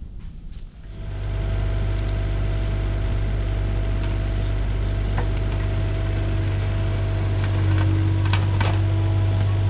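Kubota KX040-4 mini excavator's diesel engine and hydraulics running steadily while its bucket digs into soil. The engine starts about a second in, works a little harder near the end, and a few short scrapes are heard as the bucket works the dirt.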